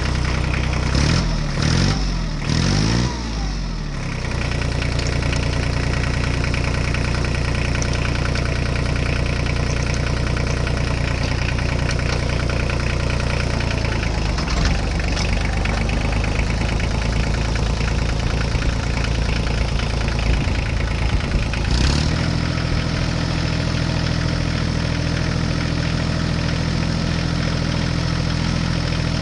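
Diesel tractor engine blipped up and down in pitch a few times over the first few seconds, then running at a steady idle. About 22 seconds in, its note changes suddenly and then holds steady again.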